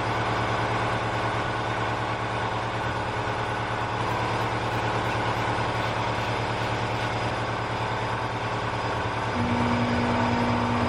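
A motor or engine running steadily at a constant speed, with a steady higher tone joining about nine seconds in.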